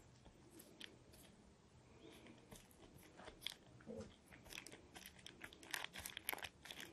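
Faint crackling and crunching of fingers rolling up a strip of puff pastry spread with a ground-hazelnut filling; the small crackles come thicker in the second half.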